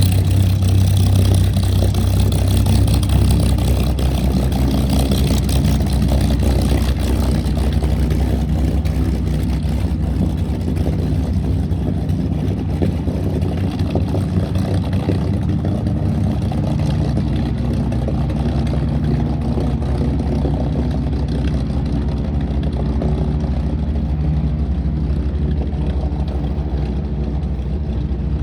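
Supermarine Spitfire Mk XIV's Rolls-Royce Griffon 74 V12 engine running steadily at low power while the aircraft taxis.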